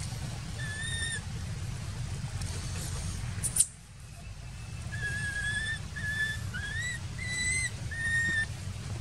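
A baby macaque's high, whistle-like cries: one short call about half a second in, then a run of five short calls from about five seconds on, one of them rising in pitch. A sharp knock sounds a little past three seconds, over a steady low rumble.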